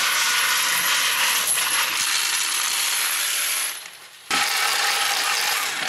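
Spent brass cartridge cases jingling and clattering against each other in a steady metallic shower. The sound breaks off for about half a second around four seconds in, then starts again.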